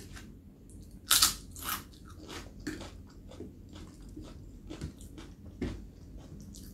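Biting into crisp papad and chewing it: a loud crunch about a second in, then a run of smaller crunches as it is chewed.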